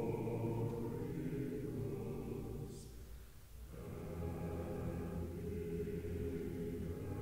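A choir singing slow, held chords, with a brief break about three seconds in before the singing resumes.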